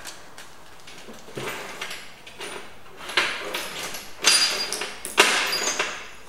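Off-camera handling noises: a few knocks and scrapes, the loudest about four and five seconds in, each followed by brief high ringing.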